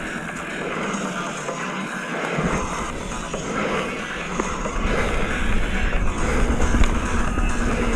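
Wind rushing over the helmet or bike-mounted microphone with the mountain bike rattling during a downhill descent; a deep rumble comes in about two seconds in and the rush grows a little louder later on.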